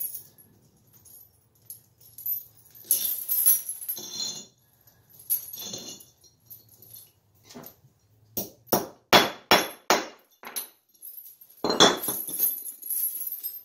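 Steel snow chain links clinking and jangling as the chain is handled and a lap link is fitted, with a quick run of about six sharp metal knocks past the middle and another loud clatter near the end.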